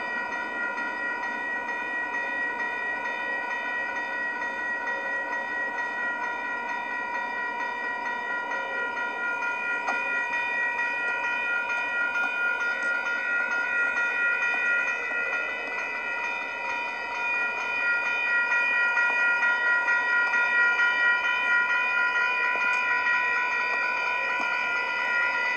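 Railroad crossing warning bell ringing continuously, a steady ringing that gets louder about two-thirds of the way in. The crossing is activated, which the uploader counts as a malfunction.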